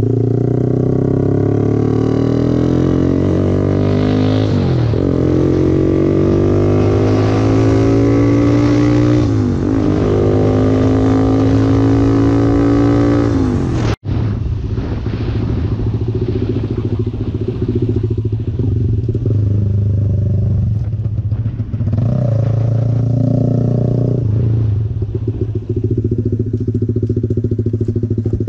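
Motorcycle engine accelerating through the gears, its pitch climbing and dropping back at each upshift, three times in a row. The sound cuts out for an instant about halfway, then the engine runs on at a steadier speed, with wind rushing over the microphone.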